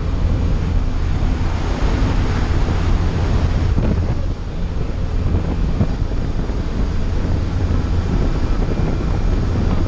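Steady rush of wind and turboprop engine noise through the open jump door of a skydiving plane in flight, with a low drone under a loud hiss of air buffeting the microphone.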